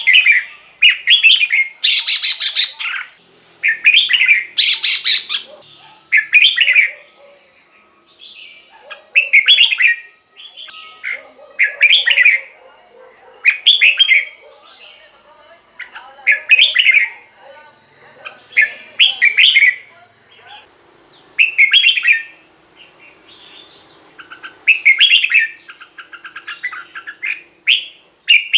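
Red-whiskered bulbul singing short, loud warbling phrases, one about every two seconds, with a faint steady high-pitched tone behind.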